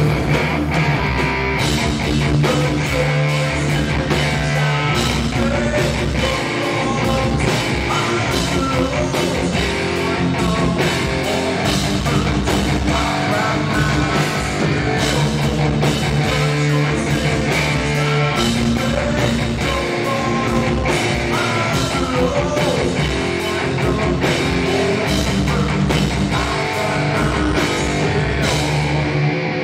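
A rock band playing live: electric guitar, bass guitar and drums, with a man singing lead.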